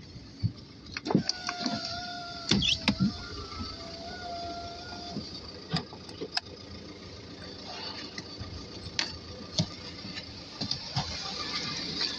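A small electric motor in a VW Passat B6's driver's door whines in a few short runs between about one and five seconds in, with switch clicks around it. Scattered clicks and knocks follow as the door is opened.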